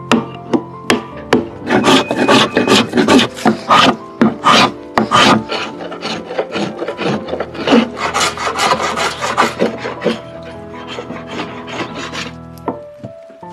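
A few hammer knocks, then repeated scraping strokes of a hand plane shaving the outside of a wooden drum shell made of glued staves. The strokes thin out near the end, over faint background music.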